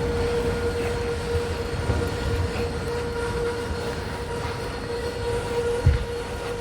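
Steady vehicle running noise: a low rumble under a constant whine, with a single thump about six seconds in.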